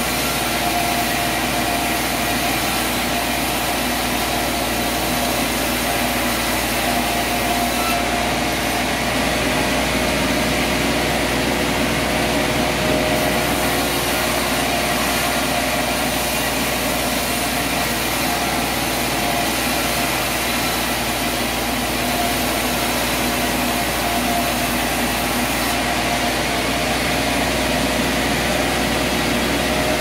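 Sawmill machinery running: a steady mechanical drone with a few steady, higher tones over it, holding even throughout.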